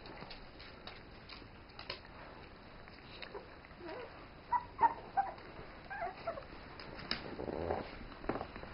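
Puppies giving a run of short squeaks and yips while wrestling in play, mostly in the middle, over light scuffling of paws on a rug.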